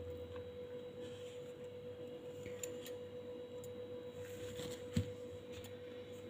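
Quiet room tone with a steady, single-pitched hum, a few faint ticks, and a soft thump about five seconds in.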